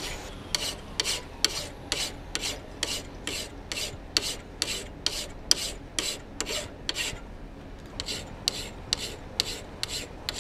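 Hand file rasping across the bevel of a normalized 4142 steel hot-cut chisel in even strokes, about two to three a second, with a brief pause about seven seconds in.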